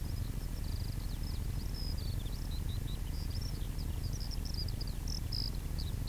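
A small songbird singing a long run of quick, varied chirps and trills, over a low rumble of wind on the microphone.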